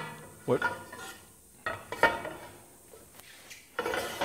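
Aluminum rip fence of a sliding table saw being handled and slid on its bracket: a few separate metal clanks and knocks with brief ringing, spread through the moment.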